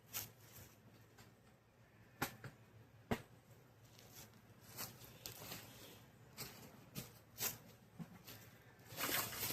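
Scattered light clicks and knocks, about eight in all and the sharpest about two and three seconds in, from handling and latching the plastic parts of an Apimaye beehive.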